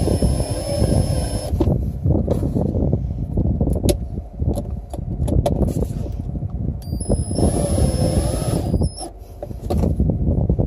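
Cordless drill/driver driving self-tapping screws into the top of a plastic RV battery box. The motor whines at a steady pitch for about a second and a half at the start, then again for about two seconds some seven seconds in, over a steady low rumble.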